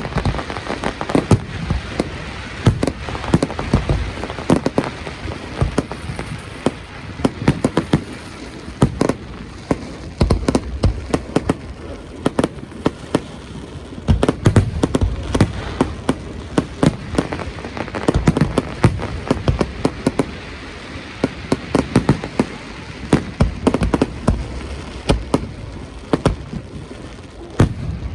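Fireworks display: a dense, unbroken run of sharp bangs and crackling, several reports a second.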